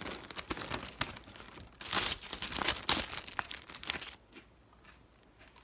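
Plastic packaging crinkling as it is handled, a dense run of crackles that stops about four seconds in.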